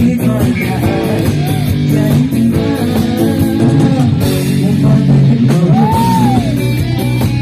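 A live rock band playing: electric guitars, bass guitar and a drum kit, with a man singing into a microphone over them. Several notes bend up and fall back in pitch.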